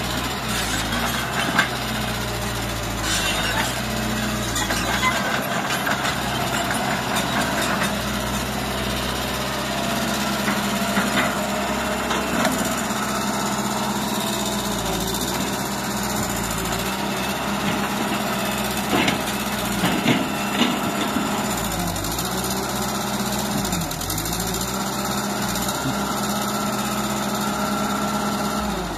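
Hitachi EX120 excavator's diesel engine running steadily under hydraulic load as the long-arm boom works, with its pitch dipping briefly near the end. A few sharp knocks sound over it.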